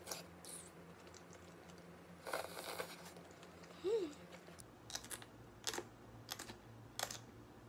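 Close-miked eating sounds: wet slurping and chewing of jjajangmyeon noodles, then a short run of crisp crunches, about one every two-thirds of a second from about five seconds in, as yellow pickled radish (danmuji) is bitten and chewed.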